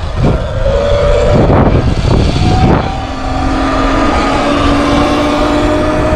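Sur Ron X electric dirt bike's motor whining as it rides along a road, the whine rising slowly in pitch from about three seconds in as the bike speeds up. Heavy wind rumble on the microphone runs under it, gusting in the first few seconds.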